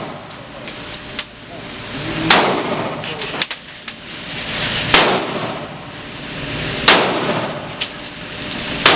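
Gunshots inside an indoor shooting range: four loud shots, about two to two and a half seconds apart, each ringing off the walls, with fainter sharp cracks and clinks between them.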